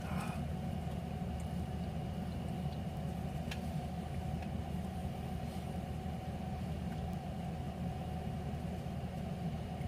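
Steady low hum of background noise, unchanging, with a faint click about three and a half seconds in.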